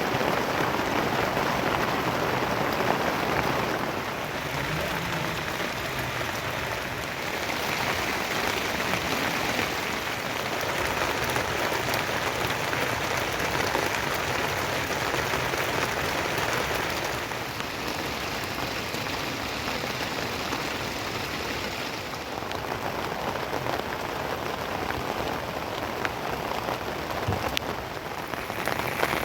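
Steady rain falling on surfaces: a dense, even hiss of drops that swells and eases slightly now and then.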